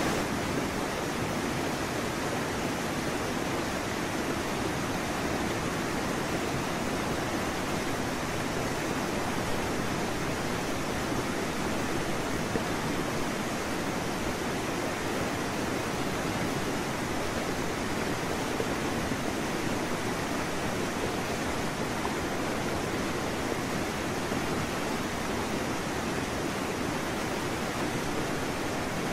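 Steady rushing noise of wind and sea on an outdoor microphone, even and unchanging, with no distinct splashes or other events.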